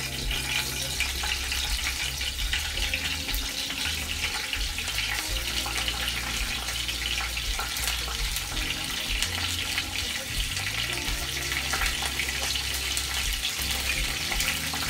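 Hot oil sizzling in a frying pan as strips of green bell pepper are dropped in to sauté: a steady hiss with small crackles.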